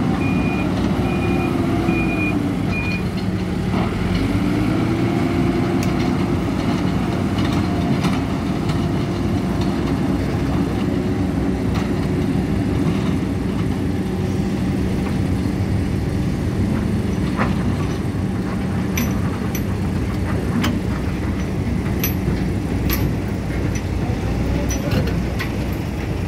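Hidromek 102B Supra backhoe loader's diesel engine running under load, its pitch dipping and rising several times as the machine works. A reversing beeper sounds for the first few seconds, and scattered sharp clicks and knocks come in the second half.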